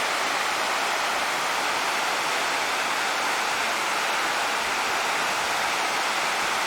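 Steady, even rush of falling water from a waterfall or fast river, unchanging throughout.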